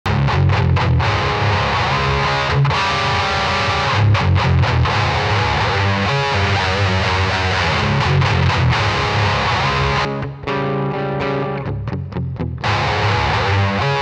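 Electric guitar played through an Occvlt Pedals Wrathprayer distortion pedal with an HM-2-style tone stack: a heavily distorted metal riff of low, thick chords. It has sharp stop-start gaps near the start, and a thinner passage of separated notes for a couple of seconds near the end before the full chords return.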